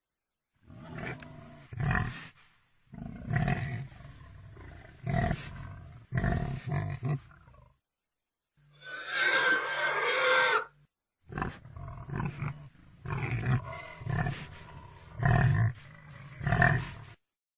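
Pigs grunting in a run of short recordings spliced together, each clip cutting off into a moment of dead silence. About nine seconds in comes a longer, higher-pitched call, a squeal.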